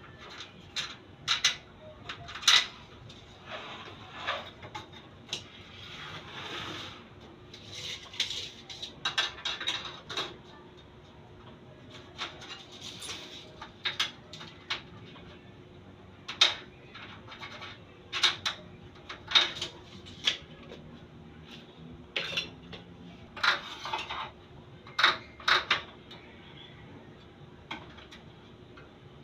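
Sharp metallic clicks and taps from a steel tape measure and a metal square handled against an aluminium sliding-door frame, coming irregularly every second or two, with some scraping a few seconds in.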